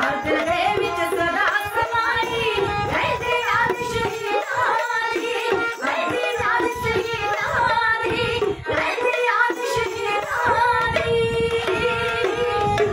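Dhadi singing: women's voices singing a Punjabi ballad with gliding, ornamented lines, accompanied by a bowed sarangi holding a steady tone and the beat of the small dhad hand drums.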